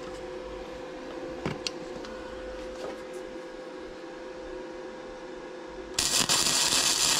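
A few light clicks of metal parts being handled in a vice over a steady hum, then about six seconds in an electric welding arc strikes and crackles loudly, running on past the end: a tack weld fixing a spacer bushing onto a custom steering shaft.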